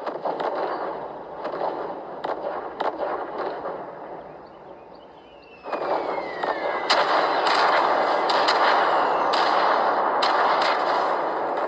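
Sony Xperia smartphone loudspeakers at maximum volume with Dolby off, playing back a soundtrack of bangs and cracks over a rumbling haze, thin with no deep bass. A falling whistle comes around five seconds in. Just before six seconds it jumps much louder and stays loud with a dense run of sharp cracks.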